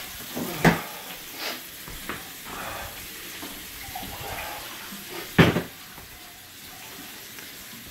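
Kitchen faucet running steadily into a sink, with a few short sharp sounds over it; the loudest comes about five and a half seconds in.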